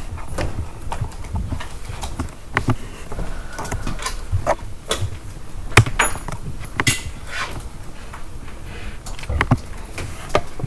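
Irregular clicks and knocks, several a second, from keys being typed and tapped, with a few dull thumps among them.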